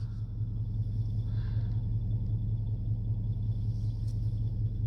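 Steady low hum of a running machine, even and unchanging, with a faint high steady whine above it.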